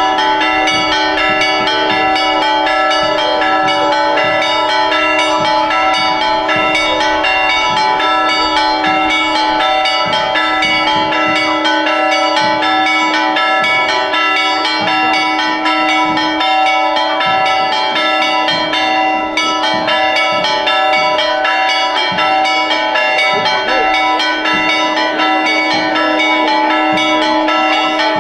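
Church bells in a bell tower ringing a fast, continuous peal of repeated strikes, their tones ringing on and overlapping: festive ringing for a religious procession.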